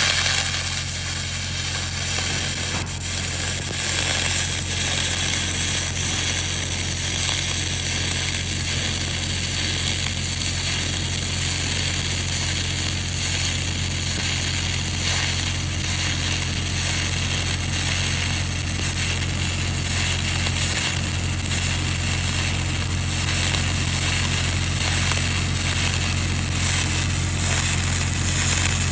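Stick (SMAW) welding arc crackling and hissing steadily while laying the root pass on a 4-inch pipe, over a steady low hum.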